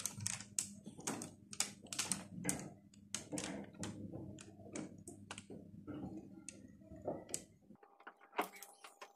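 Faint, irregular light clicks and taps, several a second, as cake batter is poured from a mixing bowl onto a parchment-lined baking tray and a spatula scrapes the bowl. A low hum underneath stops about eight seconds in.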